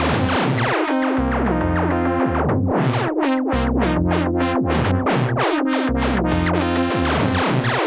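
Erica Synths Perkons Voice eurorack percussion synth module playing a fast sequenced pattern of short, overlapping pitched notes in its 4-voice poly overlap mode, with low sustained notes underneath. The sound turns darker over the first two seconds or so, then sharp bright hits come back from about three seconds in.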